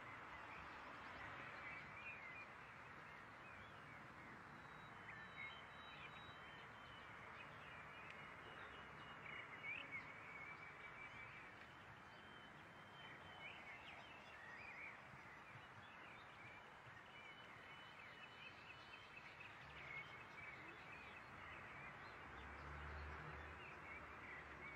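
Faint outdoor ambience with a steady hiss and many short bird chirps and whistles throughout.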